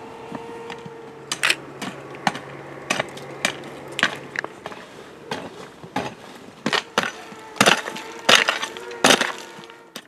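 Long-handled hoe chopping into dry, stony soil and twigs: a run of sharp strikes about every half second, the loudest coming near the end.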